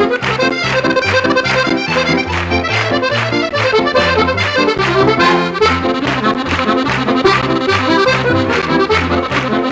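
Accordion and fiddle duet playing a fast Scottish reel, with quick, evenly paced melody notes over a pulsing bass accompaniment.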